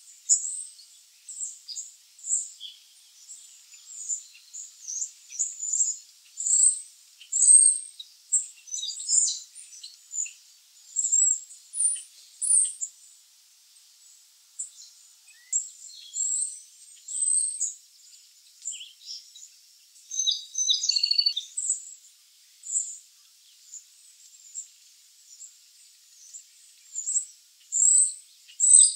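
Black-capped chickadees calling: a stream of short, high chirps and twitters, with brief lulls a little before the middle and again past two-thirds of the way through.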